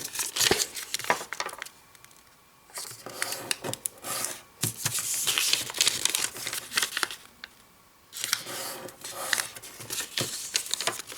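A sheet of origami paper being folded, creased and unfolded to make an 8x8 crease grid: bursts of crisp rustling and crinkling with sharp little clicks as the folds are pressed, broken by two short pauses.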